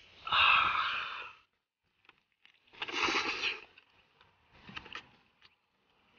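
Close-miked eating of chicken covered in chopped chili: three noisy, breathy mouth sounds, the first and loudest lasting about a second, another about three seconds in, and a short fainter one near five seconds.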